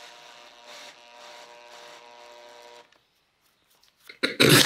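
Cordless drill-driver motor whining steadily as it drives a screw with a washer through a steel plate into pallet wood, in a few short runs with brief dips; it stops about three seconds in. A loud voice starts near the end.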